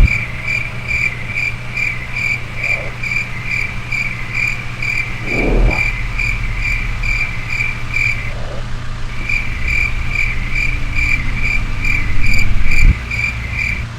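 Honda Civic engine idling roughly, skipping a beat: a misfire that the owner puts down to the fuel system or the spark plugs. Over it a high beep or chirp repeats evenly, about two to three times a second, with a short break about eight seconds in.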